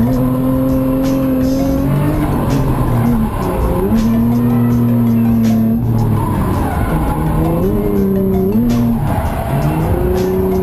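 Nissan 350Z's 3.5-litre V6 held at high revs with several quick drops and climbs in pitch, with tyres squealing, as in a car being drifted on track. Music plays underneath.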